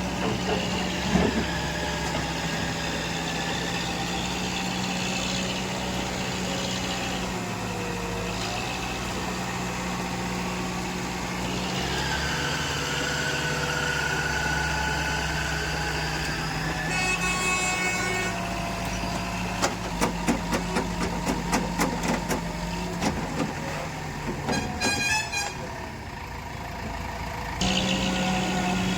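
Diesel engine of heavy construction machinery running steadily, with a run of sharp clicks and knocks past the middle.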